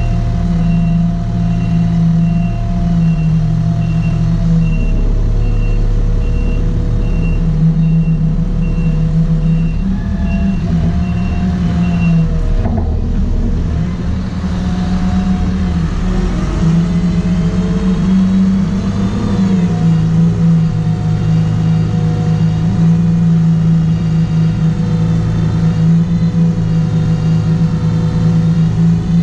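Diesel engine of a heavy farm machine running steadily under load while rolling a silage pit. A reversing alarm beeps about twice a second while it backs up, stopping about twelve seconds in as the machine changes direction.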